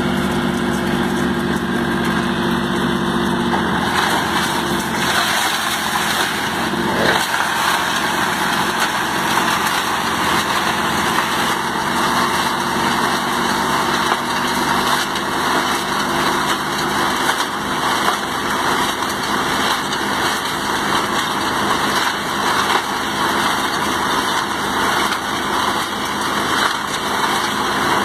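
Small self-loading concrete mixer truck running steadily. About four seconds in, its steady hum gives way to a broader, denser machine noise, and there is a single knock about seven seconds in.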